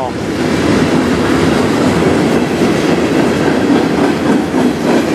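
Freight cars of a CN manifest train rolling past: covered hoppers and tank cars, their steel wheels on the rails making a steady rolling noise.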